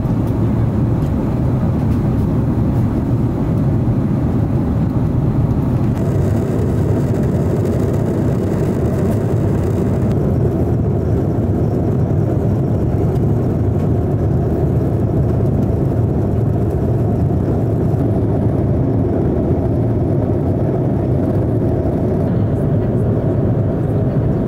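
Steady low rumble of engine and airflow noise inside an Airbus A330's passenger cabin in cruise.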